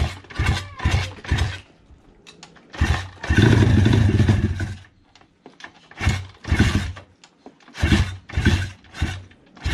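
SSR 160 pit bike's single-cylinder engine being kick-started over and over, firing in short bursts on each kick, catching and running for about a second and a half about three seconds in, then dying again. It won't idle: a snapped bolt at the carburetor lets it suck air, so it is probably running super lean.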